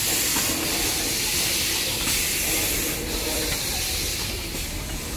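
Steam hissing steadily from the standing D&RGW C-19 narrow-gauge steam locomotive No. 340, easing off near the end.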